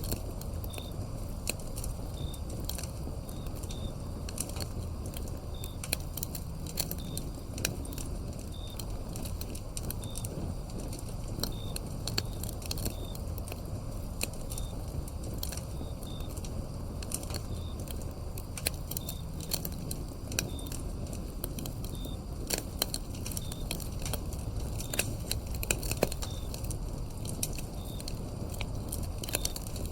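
Wood fire crackling with many irregular sharp pops over a steady low rumble of burning logs, while crickets chirp high and faint in the background.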